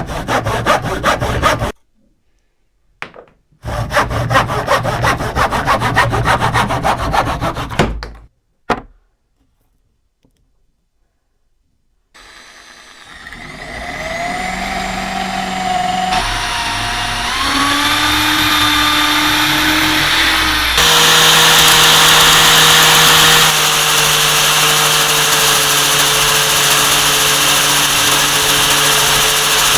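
Rapid rasping strokes, as of hand sawing or filing, in two bursts separated by a short pause. After a few quiet seconds, a power tool's motor starts: its whine rises in steps, then it runs steadily.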